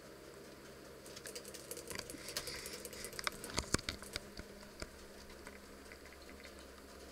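Rabbits moving about a hay- and shavings-strewn pen floor: a flurry of light scrabbling clicks and taps starts about a second in, with a few sharper knocks around the middle, over a low room hum.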